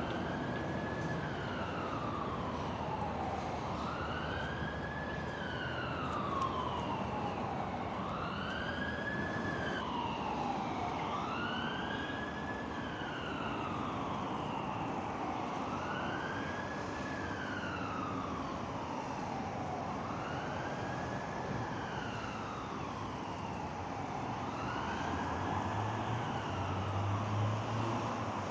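A siren wailing, rising and falling in pitch in a slow cycle about every four seconds, over a steady low background rumble.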